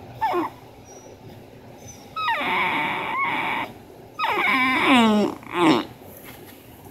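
Bull terrier whining and moaning in four drawn-out, wavering calls: a short one, a long one of about a second and a half, another with falling pitch, then a short one.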